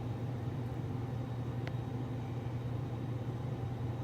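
Steady low mechanical hum, with one faint click a little under two seconds in.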